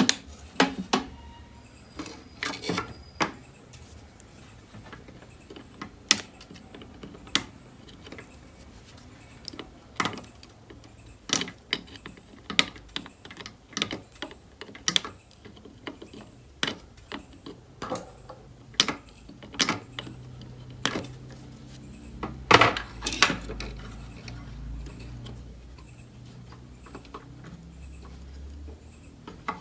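Irregular sharp clicks and light knocks of hand work on a small electronic device: tools and small parts tapping against a case and a bench. A faint low hum comes in for several seconds in the second half.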